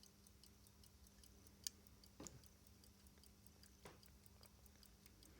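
Vintage Omega mechanical pocket watch ticking faintly and quickly, about five ticks a second, with a few soft handling clicks as the watch is turned over.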